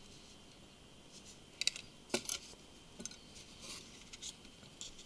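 A handful of faint clicks and taps from a Samsung Galaxy Note 2's plastic rear housing and opened phone body being handled and set down, starting about a second and a half in.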